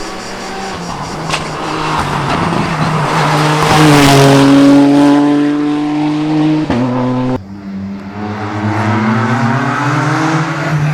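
Rally car engine at full throttle, loudest about four seconds in as it passes, then a sudden drop in revs near seven seconds at a gear change before it pulls hard again.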